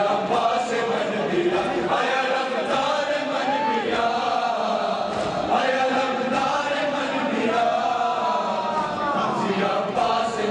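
A crowd of men chanting a Muharram mourning lament (noha) together, with long, wavering held notes and several voices overlapping.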